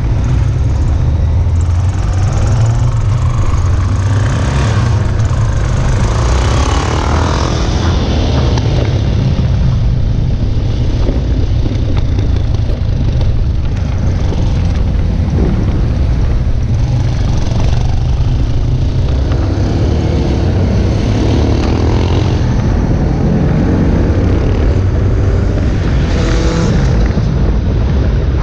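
A steady stream of motorcycles riding past in a large parade, their engines making a continuous heavy rumble, with individual engine notes rising and falling as bikes go by.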